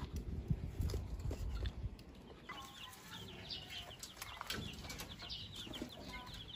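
Chickens clucking, with many short high cheeps from about two and a half seconds in. Low rustling and knocks in the first couple of seconds.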